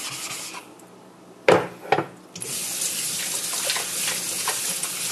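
Rubbing on a wet whetstone stops, two hard knocks follow about a second and a half in, and then a tap runs steadily into a sink.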